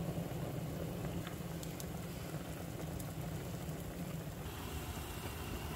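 Steady bubbling of pots boiling on an electric stovetop, with a few faint clicks: first a pot of rice water at a rolling boil, then, after a slight change in the sound about four and a half seconds in, a pot of canned tomatoes starting to boil.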